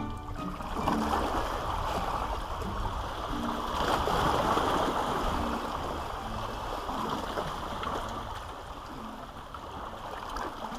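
Sea water washing and gurgling among the rocks of a seawall, a steady rush that swells about four seconds in and eases again later. A low wind rumble sits beneath it.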